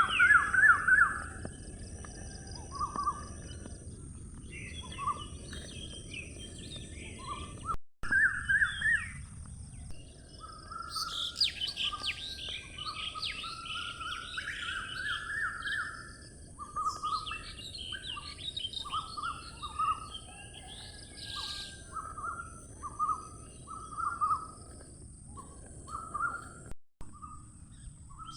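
Several birds chirping and singing in repeated short trills over steady outdoor background noise. The sound cuts out for a moment twice.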